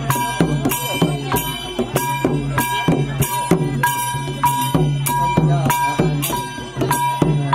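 Khmer chhayam music: long goblet drums beaten by hand, with an even beat of ringing metal strokes about twice a second.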